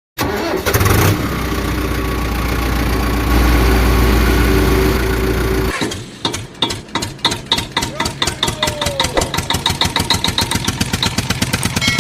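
Truck engine sound: a steady low drone cuts in suddenly and runs for about five and a half seconds, then stops abruptly and gives way to a pulsing engine chug that speeds up toward the end.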